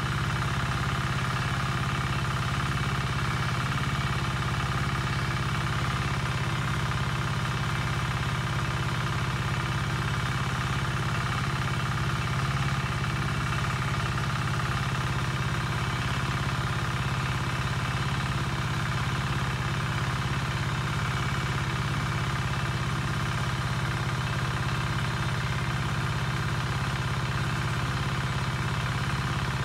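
A steady machine drone, engine-like, that holds the same pitch and level throughout, with a strong low hum and many fixed tones above it.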